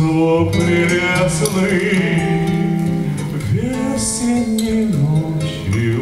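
A man singing a slow, sustained melody to his own acoustic guitar accompaniment.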